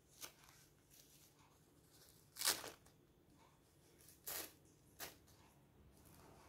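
A paper tissue rustling in the hands as it is handled and wiped over a baby monkey's head. There are four short rustles, the loudest about two and a half seconds in.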